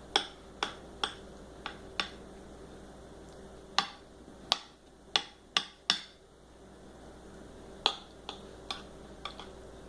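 A spoon knocking against a dish and bowl while scooping lasagna filling: about fifteen sharp clicks in irregular clusters, over a faint steady hum.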